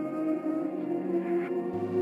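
Ambient music of long held tones with no beat; a deep low note comes in near the end.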